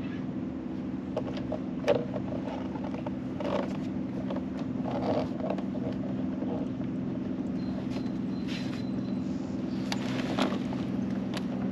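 A steady low mechanical hum with several pitches, from a motor running without pause, with a few short knocks and clicks of rod and tackle handling about 2, 3.5, 5 and 10 seconds in.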